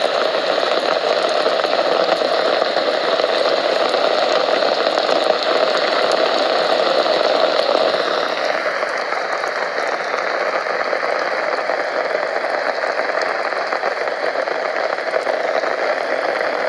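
Steady rain falling, an even dense patter, its higher part changing slightly about halfway through.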